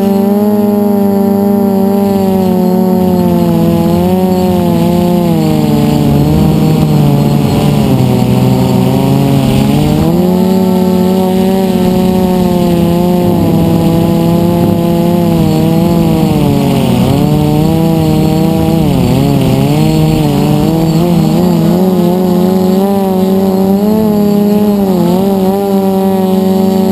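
DJI F450 quadcopter's four brushless motors and propellers whining, heard close from the onboard camera. The pitch sags and recovers several times as the throttle changes, dipping lowest about halfway and wavering just after.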